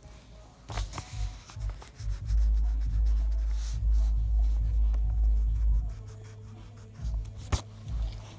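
Pencil and eraser scratching and rubbing on paper, with low bumps and rumble from the hand and paper on the table that are heaviest for a few seconds in the middle.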